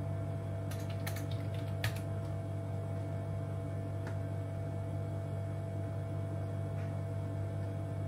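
A quick run of light clicks from a computer mouse and keyboard about a second in, then a couple of faint single clicks later, over a steady low hum.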